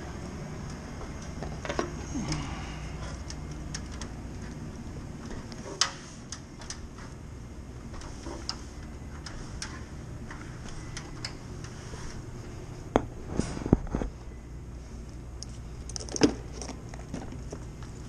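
Tools being handled at the top of a ladder: scattered clicks, taps and knocks of a clamp meter, its test leads and a tool bag, with a cluster of louder knocks about two-thirds of the way through, over a steady low hum.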